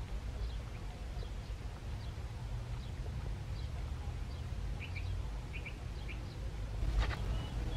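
Outdoor ambience: small birds chirping faintly in short, repeated calls over a low steady rumble, with one brief click about seven seconds in.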